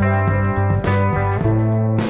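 Background music: a guitar-led instrumental, notes changing about twice a second over a steady bass line.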